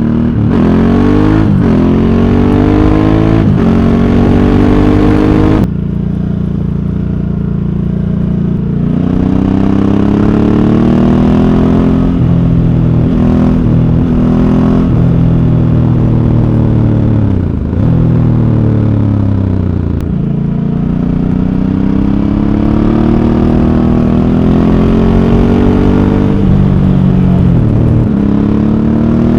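Ducati Hypermotard 1100S air-cooled V-twin on its stock exhaust, heard from on board while riding. It pulls up through the gears with quick upshifts, holds a steady cruise, slows down, then accelerates again with more upshifts near the end.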